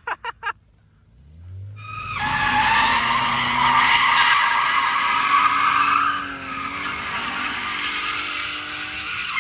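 BMW E36 coupe drift car: the engine revs up and the rear tyres break loose into a long, loud squeal as the car slides sideways through the corner, lighting up tyre smoke. The squeal eases a little after the halfway point while the engine keeps pulling.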